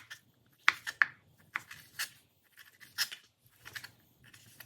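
Kitchen knife cutting raw meat into cubes on a cutting board: a series of short, sharp slicing strokes and board taps, roughly one every half second to a second.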